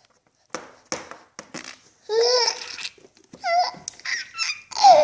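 Six-month-old baby laughing in short bursts: a few breathy huffs at first, then high, squealing laughs about two seconds in and again near the end, the last one the loudest.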